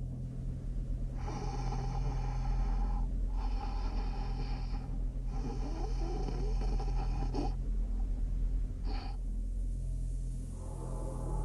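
A man's heavy, rasping snoring breaths over a steady low drone: three long drawn breaths, then a short one. Near the end a new low, hazy sound begins to swell in.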